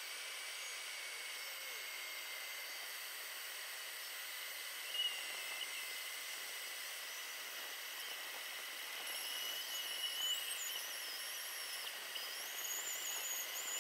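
Bandsaw running and its blade cutting slowly along a curve through a laminated hardwood block: a steady hiss with a faint high whine that wavers in pitch in the second half.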